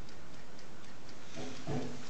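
1930s Dep marble mantel alarm clock ticking steadily, its mechanical movement running.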